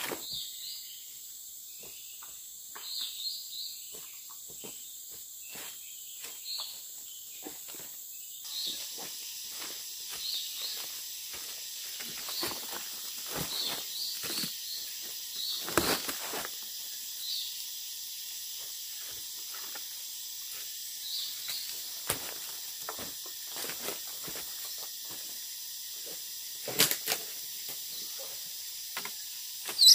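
Footsteps and hands rustling and crackling in dry leaf litter and twigs, over a steady high drone of forest insects. A few louder sharp snaps come near the end.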